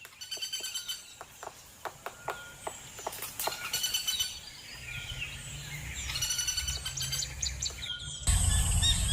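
Woodpecker drumming: three short bursts of rapid taps about three seconds apart, with single pecking taps between and other birds calling. Near the end a louder outdoor bird recording cuts in.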